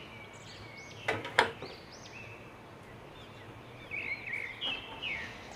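Small birds chirping in the background, short high chirps repeating throughout, with two sharp clicks close together about a second in.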